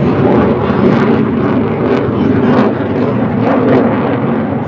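F-35 Lightning II's F135 jet engine roaring loudly during a high-g flying pass, with a ragged crackle running through it; the sound cuts off suddenly near the end.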